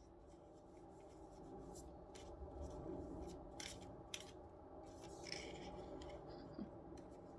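Faint scattered scraping and rustling, a few small clicks, over a steady low hum.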